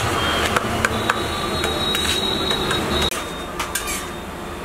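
Kitchen clatter at a griddle: scattered light clicks and knocks of metal utensils over a steady background hum. The background drops quieter about three seconds in.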